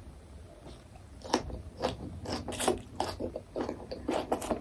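Crunchy food being chewed close to the microphone: a run of irregular sharp crunches and clicks, starting about a second in.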